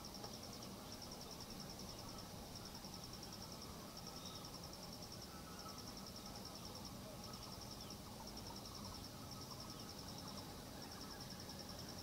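An insect chirping high and fast in rapid pulses, in runs of about a second with short breaks, over faint outdoor background noise.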